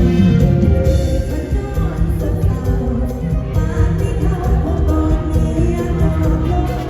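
Loud live band music with a singer, heard from in front of the stage: held vocal and instrument notes over a heavy, pounding bass.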